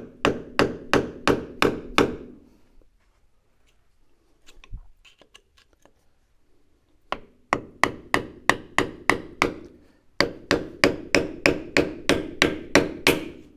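A hammer strikes a chisel held against the steel wear sleeve (speedy sleeve) on a Bobcat skid steer's axle shaft, metal on metal, to break the cut sleeve loose. It comes in three runs of steady blows at about three a second, with a long pause after the first run.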